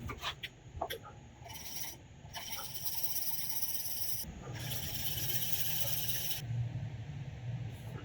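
Stanley carving chisel being rubbed on a sharpening stone. A few light clicks, then scraping strokes: a short one, then two long ones of about two seconds each. The blade is being honed to flatten its hollow-ground bevel, which the stone was touching only at the tip and the back.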